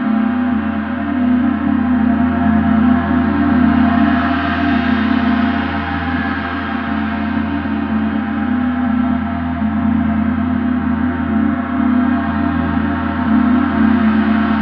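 Large gong ringing in a sustained wash of many overlapping tones. It swells a little about four seconds in and again near the end, and no separate strikes stand out.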